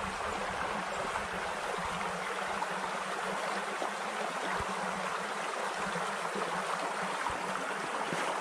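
A small mountain stream running and gurgling steadily over rocks.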